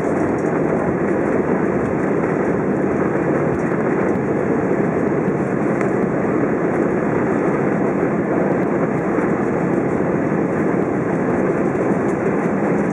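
Steady cabin rumble and hiss inside an Airbus A320 taxiing on the ground after landing, at an even level throughout.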